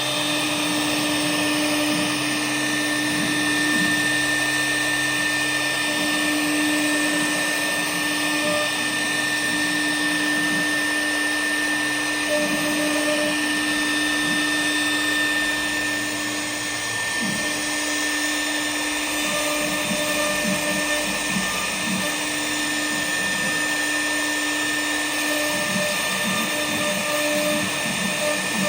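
Woodworking CNC router running, its high-speed spindle giving a steady high whine over a lower hum and a steady rushing noise.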